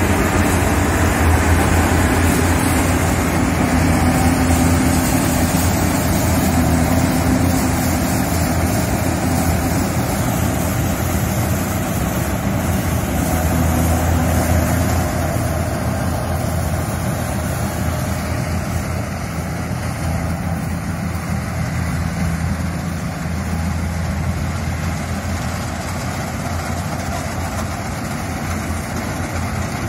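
Yanmar AW70GV combine harvester running steadily under load as it cuts and threshes rice: a continuous low diesel engine hum with the machine's mechanical noise over it. The sound grows gradually fainter through the second half as the harvester moves away.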